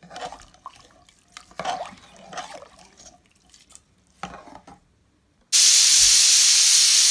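A steel ladle stirs and scrapes beans, rice and water in an aluminium pressure cooker, with light clinks and one sharper knock. After about five and a half seconds the pressure cooker starts venting steam with a sudden, loud, steady hiss, a sign that it has come up to pressure.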